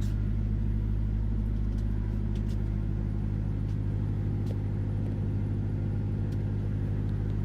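A steady low mechanical drone from a running engine or motor, unchanging throughout, with a few faint ticks.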